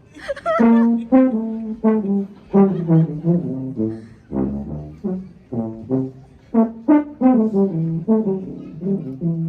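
Music: a brass instrument, trombone-like, plays a lively melody of short, quickly changing notes that starts abruptly.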